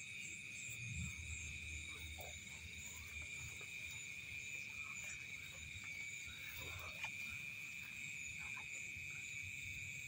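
Steady night chorus of calling frogs and insects: a continuous high-pitched drone with a few faint short calls over it, above a low rumble.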